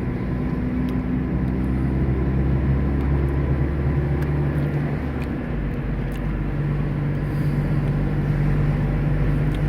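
Car engine and road noise heard from inside the cabin while driving, a steady low hum whose engine note shifts about halfway through.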